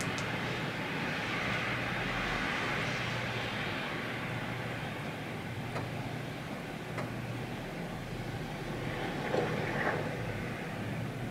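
Steady outdoor rushing noise, swelling a little in the first few seconds, with a few faint clicks.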